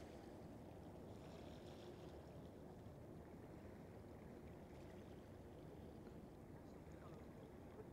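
Near silence: a faint, steady low background rumble.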